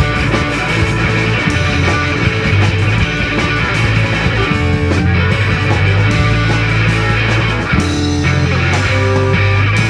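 Rock music with guitar and a heavy bass line, playing steadily and loud.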